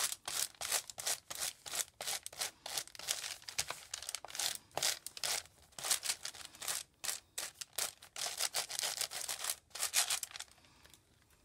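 Crayola oil pastel scribbled in quick back-and-forth strokes across crinkled composition-notebook paper: a fast run of rubbing strokes, several a second, that stops shortly before the end.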